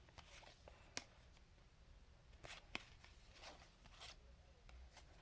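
Faint handling of trading cards: a few soft ticks and swishes as cards are slid and flipped through, over near silence.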